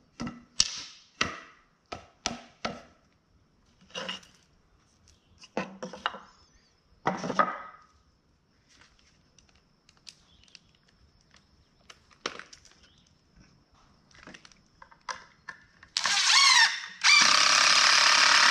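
Pieces of wood handled and knocked together, a series of short wooden clacks. Near the end a cordless drill spins up with a rising whine, stops briefly, then runs loud and steady as it drives a screw into a wood block.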